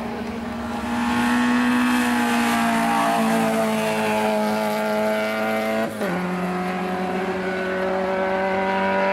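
Peugeot 205 race car's engine held at high revs under full throttle on a hillclimb. About six seconds in there is a brief break and drop in pitch, as from an upshift, and it then pulls on at slightly lower revs.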